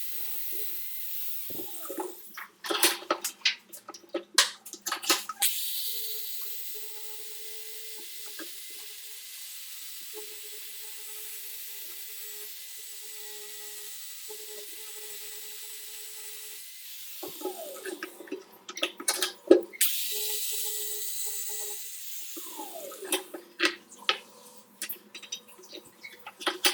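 A small power tool running steadily with a high hiss and a faint whine. It is broken three times by clusters of sharp knocks and rattles, a little after the start, past the middle and near the end.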